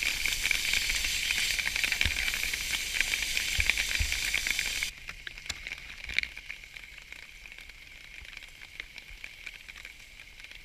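Steak frying in a pan on a camping gas stove, sizzling steadily. About five seconds in, the sizzle drops suddenly to a quieter level with occasional light ticks.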